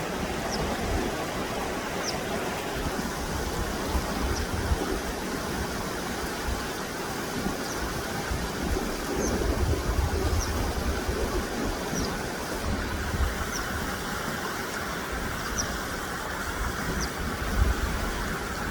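Running water rushing steadily with a low rumble, while a small bird repeats a short, faint, high chirp every second or two.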